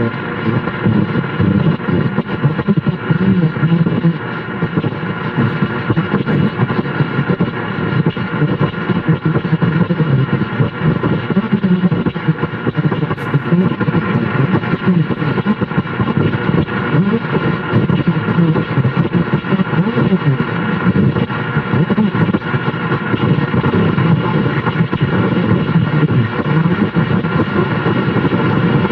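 Static from a car's AM radio tuned to 1440 kHz, turned up loud: a steady rushing crackle with several faint steady tones running through it.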